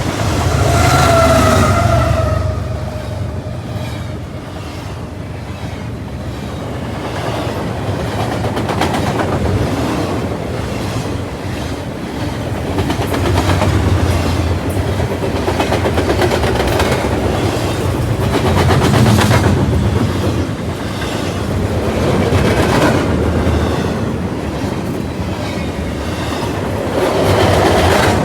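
A train rolling past at close range, its wheels clicking over rail joints in a steady run of clickety-clack under a continuous rumble. A brief, slightly falling tone sounds near the start.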